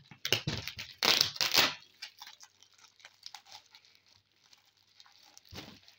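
Polythene parcel wrapping being torn open by hand: two loud rips in the first two seconds, then softer crinkling of the plastic, and one more short burst near the end.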